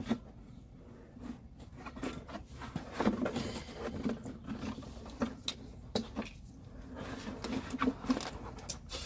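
Plastic inner fender liner being worked into a car's rear wheel well: irregular scraping and rubbing with scattered light clicks and knocks.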